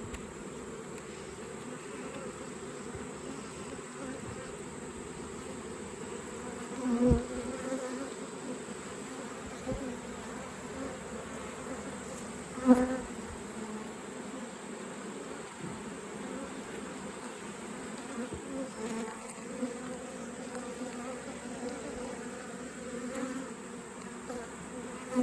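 Honey bees buzzing steadily around an open hive in a low hum. Twice, at about a quarter and halfway through, a single bee passes close to the microphone and its buzz briefly swells louder.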